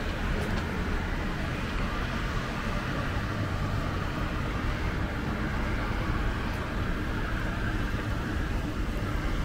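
Steady outdoor background noise with a low rumble, no distinct events.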